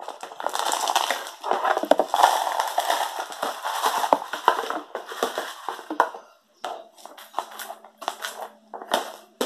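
Crunching and crushing sounds, dense and continuous for about six seconds, then breaking into separate short crunches.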